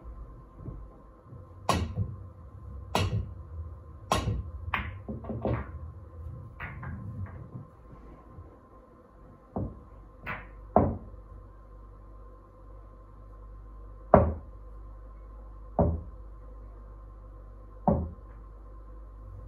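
Pool balls clacking against one another as they are gathered and racked on a pool table: a quick run of sharp clacks over the first several seconds, then single clacks a second or two apart.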